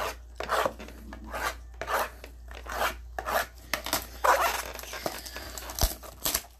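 Gloved hands sliding and handling cardboard trading-card boxes and pulling the clear plastic shrink wrap off one: an irregular run of short scraping, rubbing and crinkling sounds.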